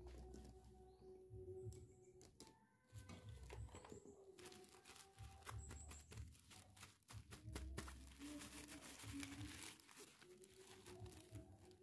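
Faint rustling and crinkling of a small cloth doll-bed sheet with lace trim being unfolded and handled, with light clicks of plastic toy pieces.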